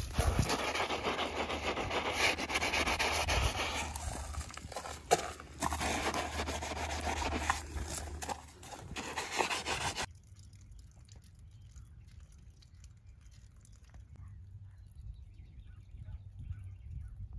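Soapy wash mitt scrubbing a fibreglass boat hull: a wet rubbing and scraping noise with a few short pauses, cutting off suddenly about ten seconds in. Only a faint low outdoor background follows.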